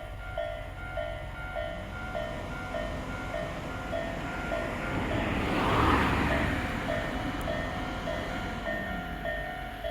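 Railway level-crossing alarm bell ringing, a repeated electronic ding a little under twice a second. About halfway through a Tobu Tojo Line train passes, its running noise swelling to its loudest about six seconds in and then fading while the bell keeps ringing.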